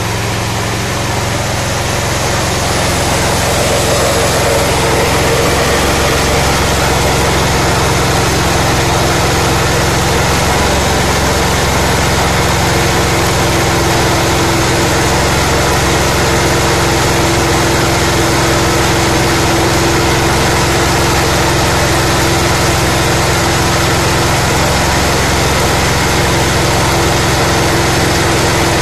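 Small gasoline/LPG combo engine running steadily while driving a mini paddy huller that is milling rice. The level rises a little about three seconds in, then holds steady.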